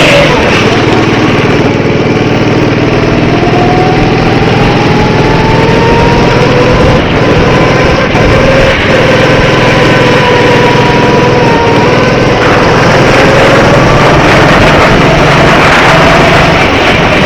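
Go-kart engine running hard under a loud, steady rush of noise, its pitch rising and falling slowly as the kart speeds up and slows.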